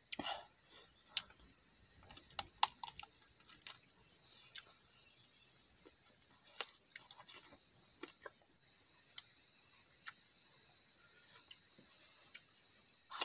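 Crickets trilling steadily in a high, even pulse, with scattered sharp clicks and smacks of eating with the hands, the loudest about two and a half seconds in.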